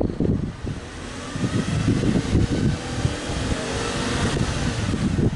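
Exhaust of a Subaru Legacy B4 3.0R's EZ30 3.0-litre flat-six at the twin tailpipes, the engine revved up with a rising pitch and climbing loudness over a few seconds, easing off near the end.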